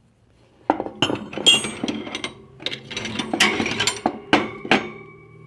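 Steel wrenches and other hand tools clattering and clinking against each other as they are rummaged through and lifted out of a toolbox, with rapid irregular clanks for about four seconds. The last hits leave a ringing metallic tone that dies away near the end.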